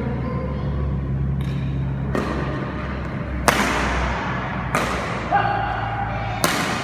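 Badminton rackets striking a shuttlecock five times in a rally, sharp cracks about one to one and a half seconds apart, each followed by a short echo of a large hall, over a steady low hum.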